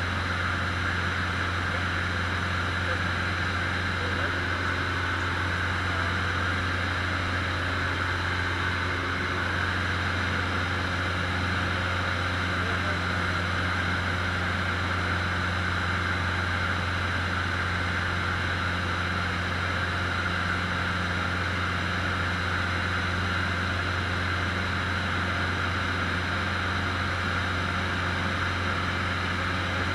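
Cessna 150's four-cylinder Continental O-200 engine and propeller droning steadily in cruise flight, heard inside the cabin. The drone holds an even pitch and level, with a low hum under a broad rushing hiss.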